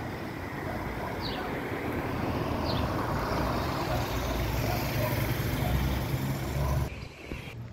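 A motor vehicle passing close by on the street, its engine and tyre noise growing steadily louder, then cut off suddenly near the end.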